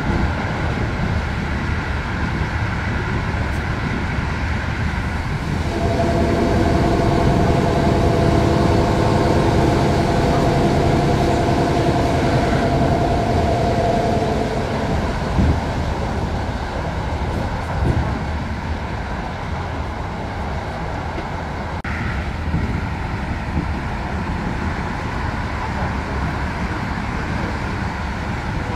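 Steady rumble of a passenger train running at speed on the rails, heard inside the coach. A whine with several pitches joins in for several seconds in the middle, and there are a couple of short knocks a little later.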